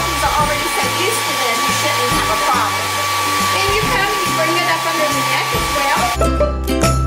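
Handheld hair dryer blowing steadily with a high whine while drying a puppy's coat; it switches off about six seconds in. Background music plays underneath.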